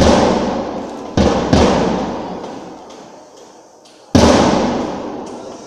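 Four loud, sudden bangs, two of them close together about a second in and the last about four seconds in, each one ringing out slowly in a large echoing gymnasium hall.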